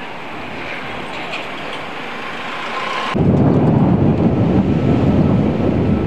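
City street traffic noise, steady at first, then suddenly louder and deeper about three seconds in.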